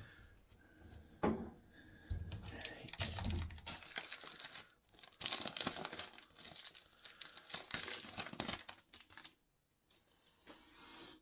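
Packaging wrap crinkling and tearing as it is pulled off a small cardboard box, in dense rustling spells, with a single sharp knock about a second in.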